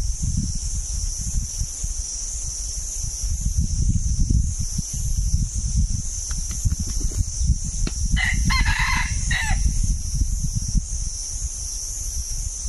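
A red junglefowl rooster crows once, about eight seconds in, a short crow of about a second and a half. A few faint wing-flap clicks come just before it. A steady high insect buzz and low rumbling noise run underneath.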